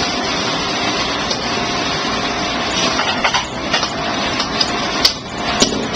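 Steady rushing noise of a commercial wok station's burner and exhaust hood, with a few sharp metal clanks of a utensil on the pan in the second half.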